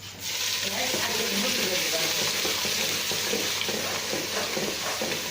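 Ingredients tipped into a pan of hot oil, sizzling and frying; the sizzle starts suddenly just after the start and holds steady.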